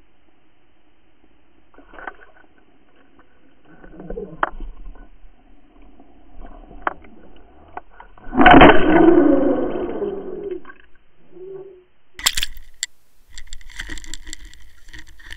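Muffled underwater water noise and sharp knocks picked up by an underwater camera on an umbrella rig, with a long loud rush of churning water about eight and a half seconds in as a hooked striped bass swims at the camera. Near the end, sharper, clearer knocks and clatter as the camera comes out of the water onto a boat deck.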